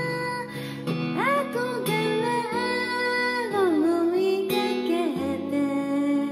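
Acoustic guitar accompaniment playing gently, with a voice singing one long note that slides up about a second in, holds, and falls away near the middle.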